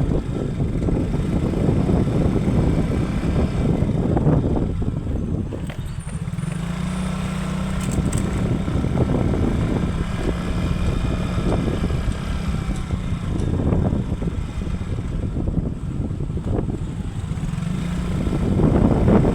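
Motorcycle engine running on the move, with wind rumbling on the microphone and a steady engine tone through the middle.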